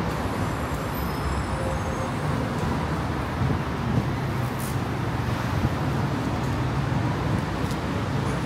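City street traffic: a steady low rumble of passing cars and buses on the avenue.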